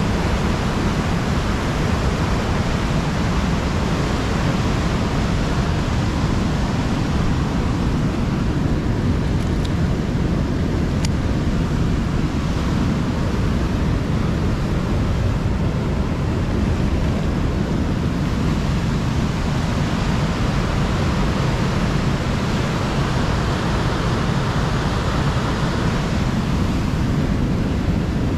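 Steady rushing of river water, an even, unbroken noise.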